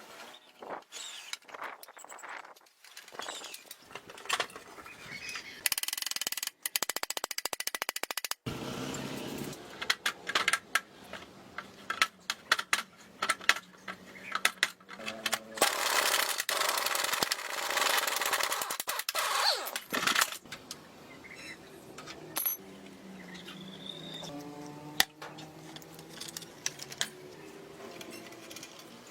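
Metal tools and motorcycle parts clinking, clicking and knocking as they are handled and worked on. A longer, louder noisy stretch fills the middle, with a steady low hum under it.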